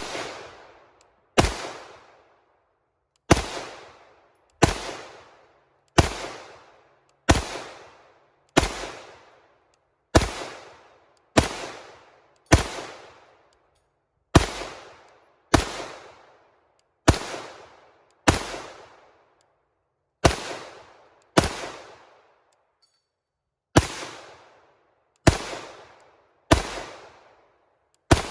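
Canik TP9 SFX 9mm pistol fired in a slow, steady string of about twenty shots, one every second or so, each with a short echo, with a brief pause about two-thirds of the way through.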